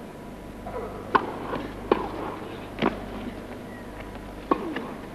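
Tennis rally: four sharp pops of the ball off the racket strings, about a second apart, with a longer gap before the last one, over a low hum of indoor crowd noise.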